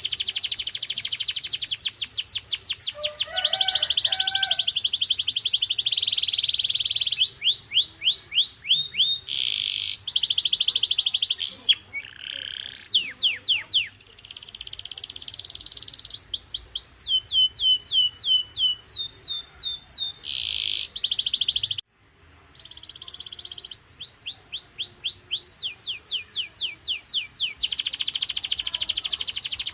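Canary singing a continuous song of trills and rolls: fast runs of repeated high notes that each slide down in pitch, changing speed from phrase to phrase, alternating with dense buzzing rolls. The song breaks off briefly a little past the middle.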